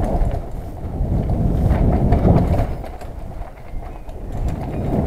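Mountain bike riding down a dirt trail: wind buffeting the camera's microphone over the rumble of tyres on the dirt, swelling and easing, with a few light rattles and knocks from bumps.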